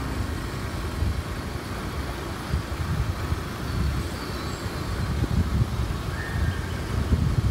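Wind buffeting the microphone of a moving camera: a gusty rumbling rush, with faint bird chirps about four and six seconds in.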